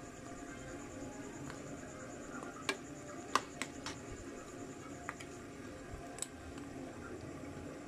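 Metal ladle stirring a steaming pork kare-kare stew in a metal pan, tapping and clicking against the pan several times over a steady low background noise.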